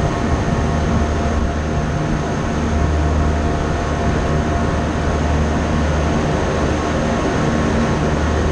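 Steady drone of running machinery: a low hum with a few steady higher tones over a constant rush of noise.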